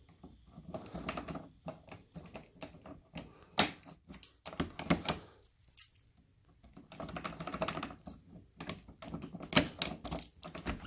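Rapid, irregular clicking and light rattling of small hard objects, coming in clusters with a short pause about six seconds in. A few sharper, louder clicks stand out, about three and a half, five and nine and a half seconds in.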